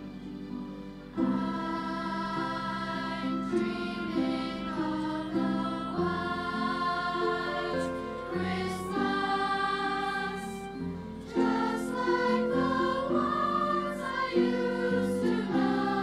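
Children's choir singing a song over musical accompaniment, the voices coming in about a second in after a quieter instrumental lead-in.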